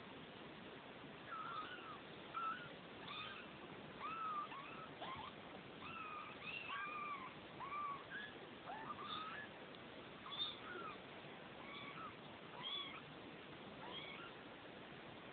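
Two-week-old Neva Masquerade kittens mewing: many short, thin, high calls, one after another and sometimes overlapping.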